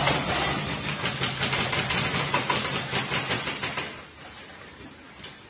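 Airsoft guns firing in a mine tunnel: a rapid run of sharp clacking shots for about four seconds, then stopping.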